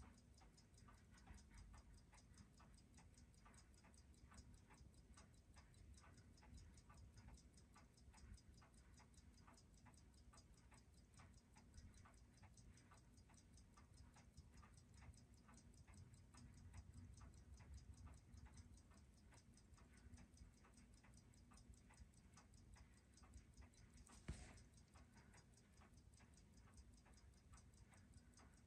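Faint, steady ticking of a Seiko 6217 watch movement beating at 18,000 beats per hour, about five even ticks a second. The ticks are regular, in keeping with a freshly serviced movement that shows no beat error. A single louder click comes near the end.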